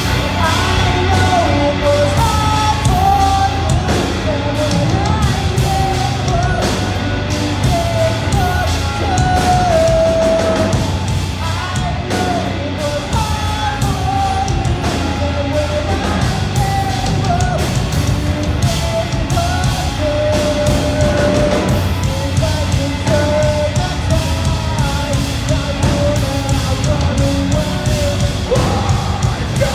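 A live metalcore band playing through a club PA, heard from the audience: distorted guitars, bass and pounding drums with vocals, at a steady loud level.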